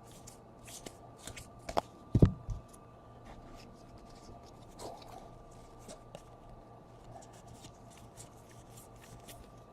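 Trading cards being flipped and slid through by hand, with a run of faint quick rustles and a couple of soft knocks about two seconds in.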